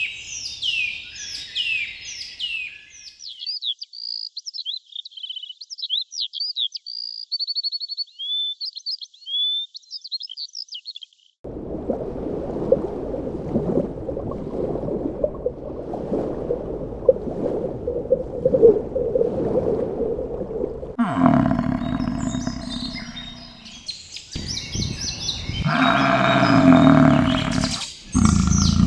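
A run of animal sounds. Repeated high, falling bird calls and chirping bird song last about the first eleven seconds. A low noisy rumble follows, then loud, deep animal calls in the last eight seconds.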